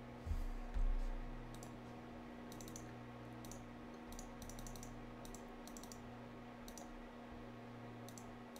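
A run of quick, light clicks from a computer's input as numbers are entered into an on-screen calculator, some clicks coming in fast clusters. Two low thumps come near the start, over a steady low hum.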